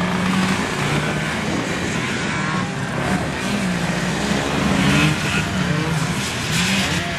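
Vintage racing snowmobiles' two-stroke engines running hard, their pitch rising and falling as the sleds race.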